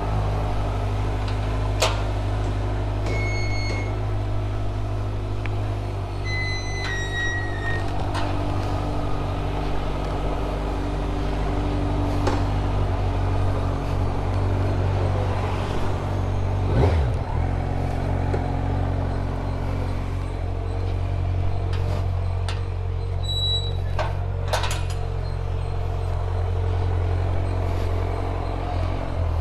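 Kawasaki Z900's inline-four engine running at a steady speed while being ridden, with a brief dip in engine sound about halfway through. A few short horn beeps from traffic sound near the start and again later.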